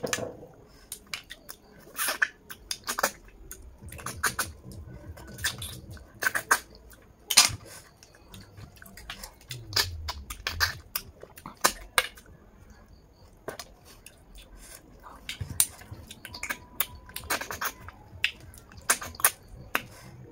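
Snails in their shells being sucked out by mouth and eaten: irregular sharp sucking smacks and slurps, a few a second at times, with chewing in between.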